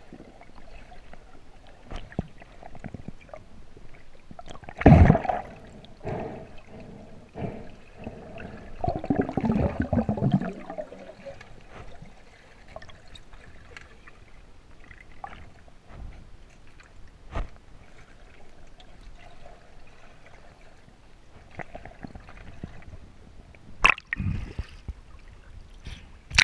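Muffled underwater sound of a freediver moving through a lake: water swishing and gurgling, with scattered clicks and knocks. The loudest bursts come about five seconds in and around nine to ten seconds in, and a sharp splash comes near the end as the camera breaks the surface.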